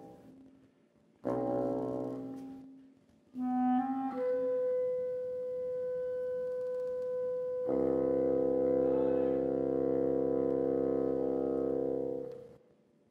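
Clarinet and bassoon duet playing its closing bars: two short chords, then the clarinet holds a long high note, and the bassoon comes in with a low sustained note beneath it about halfway through. The two hold together and then stop near the end.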